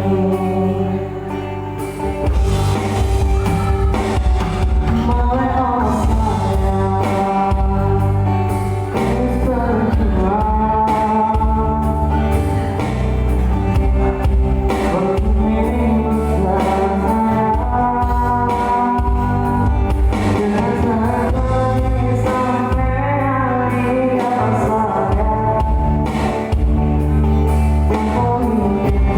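Live band music with a singer: a sung melody over guitar, keyboard and bass backing with a steady beat.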